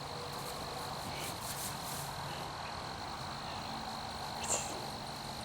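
Insects trilling steadily at one high pitch, with faint soft rustles early on and a brief small sound about four and a half seconds in.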